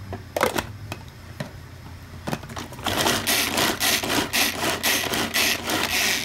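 Onion being minced in a small food chopper: a few clicks as the lid goes on, then from about three seconds in a loud, rapid rattle of onion pieces against the blades and bowl, about five strokes a second.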